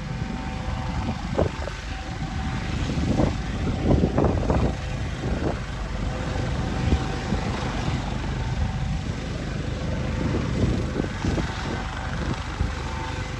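Air ambulance helicopter on the ground with its engines running, a steady whine over a low rumble. Gusts of wind buffet the microphone in the first half.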